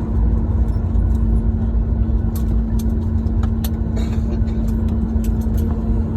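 Airliner cabin noise just after landing: a steady low rumble with a constant hum through it, and scattered light clicks and rattles.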